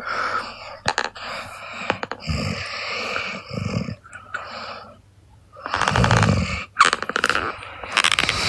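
A young woman snoring in her sleep: a series of noisy breaths, with a louder, fluttering snore about six seconds in.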